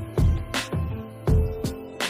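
Background music with a beat of low drum thumps under held instrumental tones.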